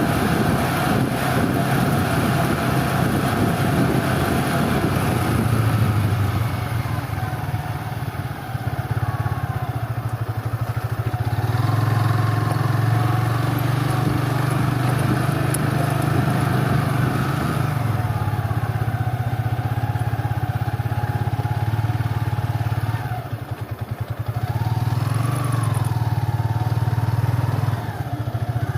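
A motor vehicle's engine running steadily with a low hum, dipping briefly in level about 23 seconds in.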